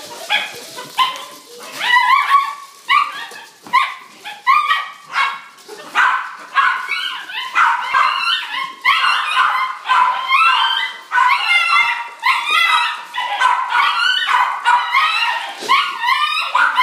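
Several puppies whining and yipping, short high calls coming one after another and often overlapping, without a break: puppies crying for their mother.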